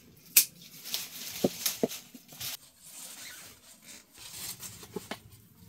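Tomato plants being handled: leaves and stems rustling, with several sharp clicks, the loudest about half a second in.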